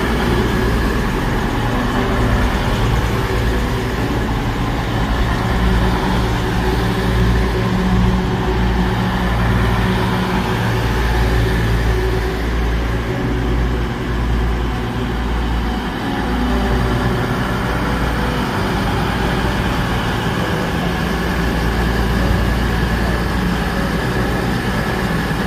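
Underfloor diesel engines of CrossCountry Voyager diesel multiple units running at the platform: a loud, steady low rumble with a constant engine hum that swells and eases slightly.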